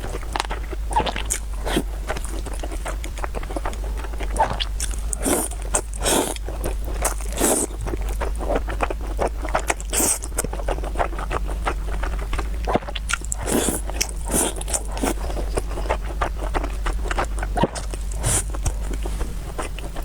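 Close-miked eating sounds: a person chewing and biting food, with many irregular short wet clicks and smacks, over a steady low hum.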